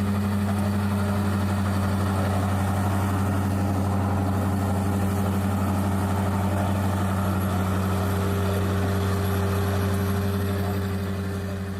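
An engine idling steadily with an even, low hum that does not change in speed, starting to fade away near the end.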